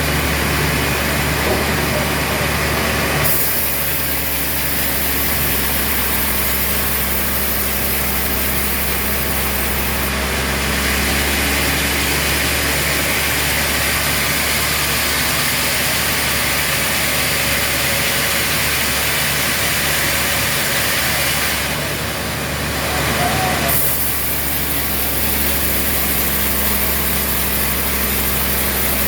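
Sawmill machinery running steadily: a low engine hum under a constant hiss, with the hiss jumping abruptly louder or softer a few times.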